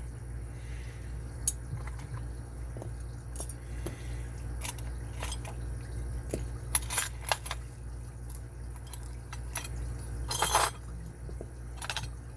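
Small metal parts clicking and clinking as an Abus 83AL50 brass padlock is handled and taken apart, with scattered separate ticks and a short rattle about ten seconds in, over a steady low hum.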